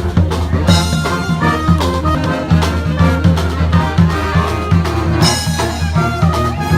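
Street brass band playing live: horns over a bass line and a steady drum beat, with bright cymbal-like crashes about a second in and again about five seconds in.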